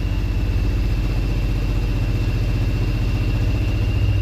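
Land Rover's petrol engine running rough with a persistent misfire, a reassembly having failed to cure it, heard from inside the cab. It sounds more like a David Brown tractor than a car.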